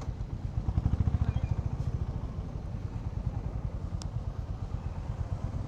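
Honda H'ness CB350's single-cylinder engine running at low revs with a steady, even exhaust beat, picking up a little about a second in.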